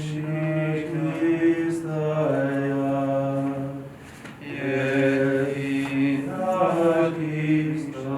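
Unaccompanied Byzantine liturgical chant sung in long held notes that step from pitch to pitch, with a brief break for breath about four seconds in.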